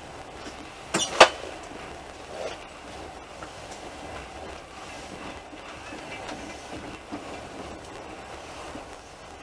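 Moving train heard from inside the carriage: a steady running rumble, with two sharp knocks about a second in, a fifth of a second apart.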